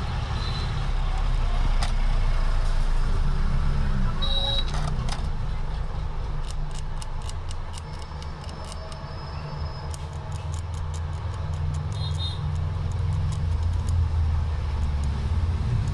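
Low, steady engine rumble, like a motor vehicle running nearby, with two short high beeps and a stretch of light clicking in the middle.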